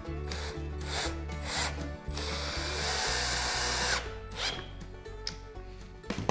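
Cordless drill/driver driving a screw into wood: a few short trigger pulses, then a steady run of about two seconds as the screw is driven home.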